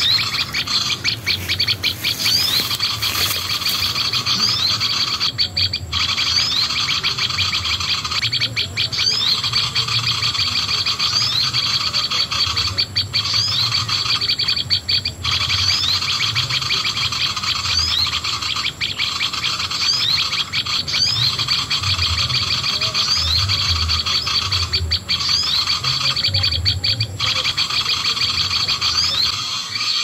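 A recorded bird call played loudly through a small MP3 player's speaker as a lure for bird trapping. The chirps are fast and unbroken, with short rising whistles, and they stop briefly every few seconds.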